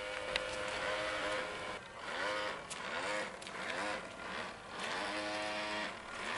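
Battery-powered electric motor of a radio-controlled model boat whining. It holds a steady pitch for the first second or so, then its pitch slides up and down several times.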